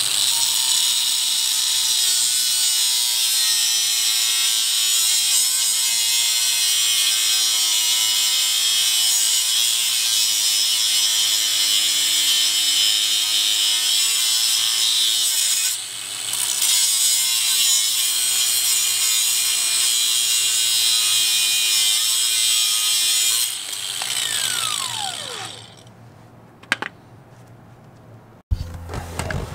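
Electric angle grinder with a cutting disc, running steadily and grinding a small piece of steel to make a tool that fits a bolt. It eases off briefly about halfway, then is switched off near the end and winds down with a falling whine, followed by a single click.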